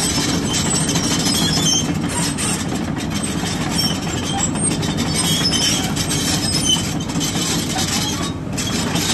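Hyundai 220LC-9S tracked excavator running steadily, with a constant diesel drone and scattered light metallic clinks and squeaks over it.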